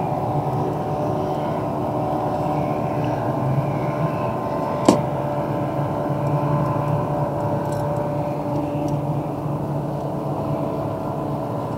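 A boat engine running steadily at a constant pitch, with one sharp click about five seconds in.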